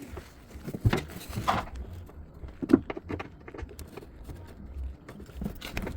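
Irregular metallic clicks, taps and short scrapes of a hand tool working at the screws of a twin-tub washing machine's transmission, with the sharpest knocks about a second in and near three seconds in.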